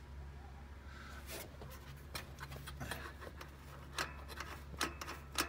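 Hands handling old wiring and rubber hoses in a classic car's engine bay: scattered rubbing and rustling with light clicks, and a few sharper ticks in the last second and a half.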